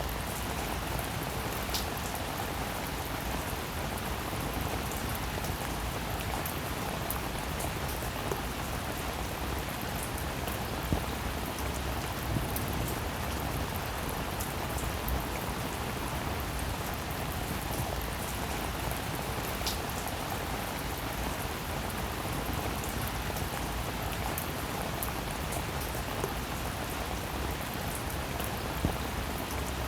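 Steady rainfall: an even hiss of rain with a few louder single drops ticking through it now and then.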